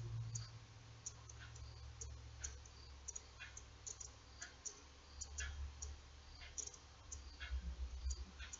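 Faint, irregular light clicks, a couple a second, from a fine 1.65 mm steel crochet hook working single crochet stitches in embroidery floss, over a low steady hum.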